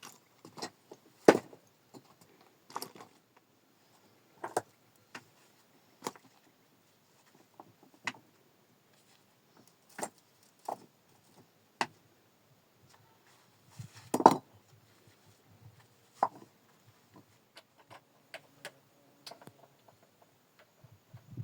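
Irregular sharp clicks and knocks of stones being handled and set against one another, roughly one every second or two, loudest about a second in and again around fourteen seconds in.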